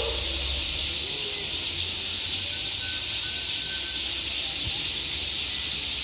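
Many small birds chirping together in a dense, steady, high-pitched chorus from the trees.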